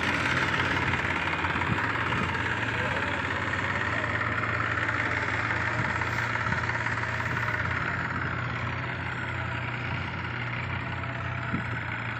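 Tractor engine idling steadily, a little fainter in the last few seconds.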